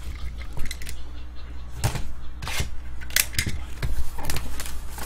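Shrink wrap on a trading-card hobby box crinkling and tearing as hands work it open, in a run of short, sharp crackles.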